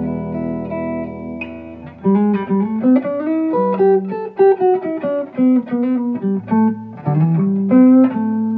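FireFly FF338 semi-hollow electric guitar played amplified through its hand-rewound neck humbucker, volume and tone wide open. A held chord rings for about two seconds, then comes a quick run of single notes, ending on a chord left to ring.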